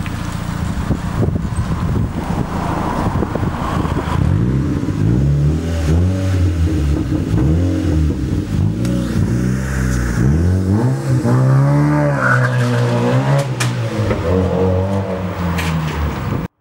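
Mazda MX-5 four-cylinder engine and exhaust, a steady low note at first, then revved again and again from about four seconds in, the pitch rising and falling with each rev. The sound cuts off abruptly at the end.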